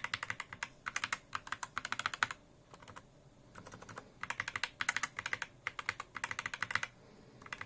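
Typing on a mechanical keyboard fitted with silent optical yellow switches: quick runs of soft keystroke clicks in two bursts with a pause of about a second between them.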